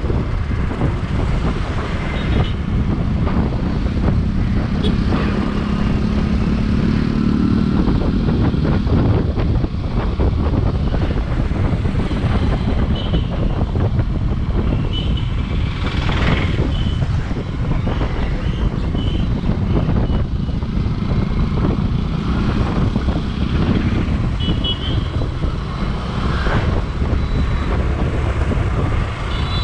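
Riding a motorcycle on a road with traffic: steady engine and road noise, with an engine pitch rising for a couple of seconds about six seconds in and a few short high chirps scattered through.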